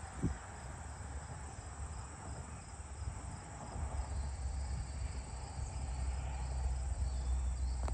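Steady chorus of crickets and other insects, a continuous high-pitched trill. A low rumble comes in about halfway through.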